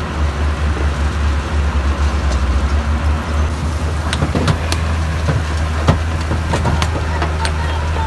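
Heavy diesel earthmoving machine running steadily with a deep rumble, with a handful of sharp knocks about halfway through.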